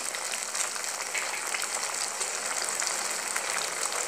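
Pureed tomato sauce with fried garlic and onion sizzling as it cooks in a pan: a steady hiss with faint crackles.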